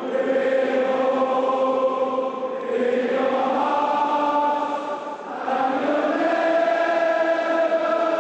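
Slow anthem sung by many voices in unison, long held notes in phrases a few seconds long, with brief breaks between phrases.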